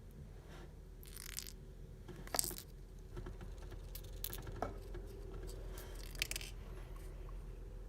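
Small irregular metal clicks and clinks of tweezers and tiny lock pins against a padlock's lock core and follower during pinning. About five light taps and rattles, the sharpest about two and a half seconds in.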